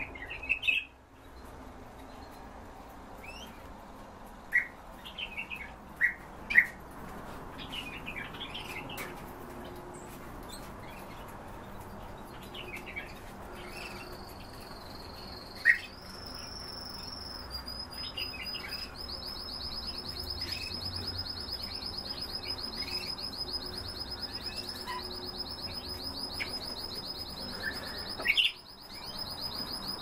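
Small caged songbirds chirping, with scattered short calls, some of them loud and close. From about halfway on, one bird holds a long, high, rapid trill.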